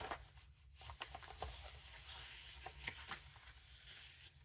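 Paper and vellum pages of a handmade junk journal being turned by hand: soft rustling and sliding, with several light taps and flaps as the pages fall.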